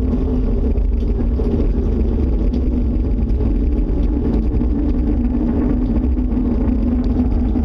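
Loud, steady low rumble with a constant droning hum, unchanging throughout: an unexplained noise that those recording first took for a tornado.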